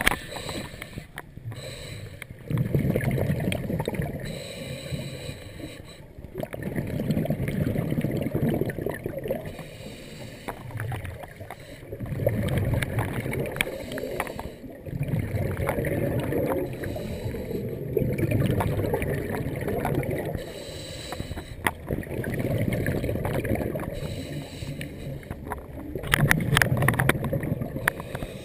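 Scuba diver's breathing through the regulator underwater: exhaled bubbles rumble out in bursts of two to three seconds, about every four to five seconds, with quieter gaps for the in-breaths.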